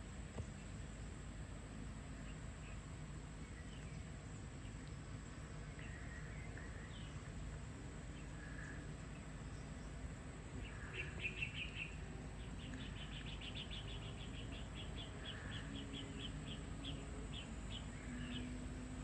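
Birds calling with scattered short chirps over a steady low background rumble; about halfway through, one bird starts a fast run of high repeated notes that goes on for several seconds.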